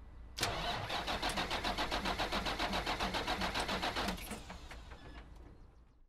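A vehicle's starter motor cranks the engine, which has been disabled from starting, so it turns over without firing: an even chugging of about five compression strokes a second. About four seconds in the cranking stops and the sound dies away.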